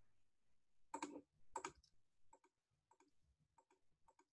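Faint clicks of a computer keyboard and mouse, the G key and left button pressed in turn: two clearer clicks about a second and a second and a half in, then several softer ones.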